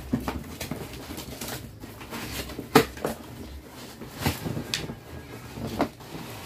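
Cardboard box being handled and opened: flaps and packing material rustling, with scattered knocks and taps, the sharpest a little under three seconds in.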